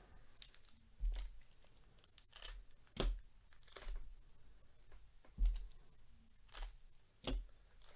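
Foil wrapper of a Donruss football card pack being torn open and crinkled by hand: a string of short crinkles with sharper rips about one, three, five and a half and seven seconds in.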